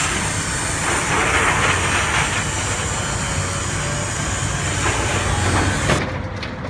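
Volvo tracked excavator's diesel engine running under load as it pulls down a warehouse's timber roof structure, with debris clattering and crashing over a steady engine hum; the crashing is loudest between about one and two and a half seconds in. The noise drops off suddenly about six seconds in.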